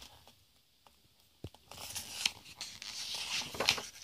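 Paper page of a picture book being turned: a light tap about a second and a half in, then about two seconds of paper rustling.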